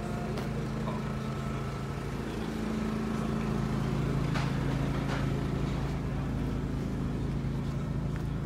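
An engine running steadily at a low, even pitch, getting a little louder about three seconds in, with a few faint clicks over it.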